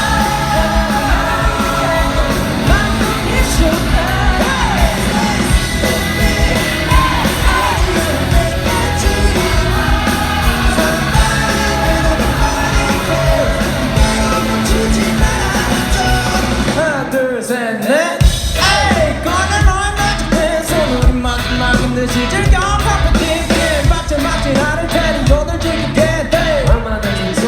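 Live pop-rock band playing with sung lead vocals. About two-thirds of the way through, the bass and drums drop out for a moment, then the full band comes back in.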